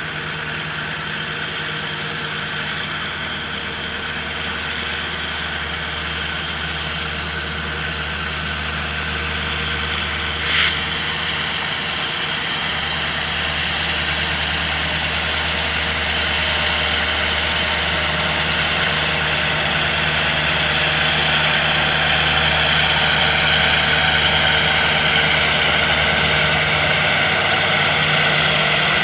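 Diesel freight locomotives passing, their engines a steady low drone that grows louder after the middle as the units come level. A brief sharp noise about ten seconds in.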